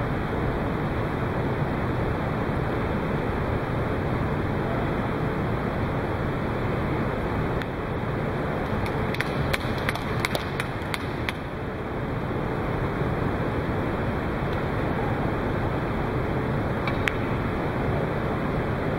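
Steady rushing background noise, with a cluster of sharp clicks about halfway through as a snooker cue strikes the cue ball and the balls collide. A single click follows near the end.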